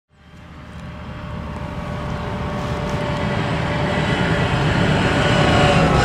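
Claas Lexion 760 combine harvester running, its engine and threshing machinery making a steady drone with a steady whine, growing louder as it approaches.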